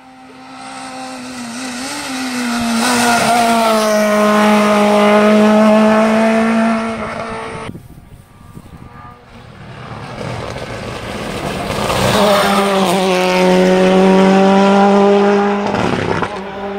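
Hill-climb race cars passing one after another, engines held at high revs. The first car's note builds as it approaches, holds steady and falls away. A second car follows the same way a few seconds later.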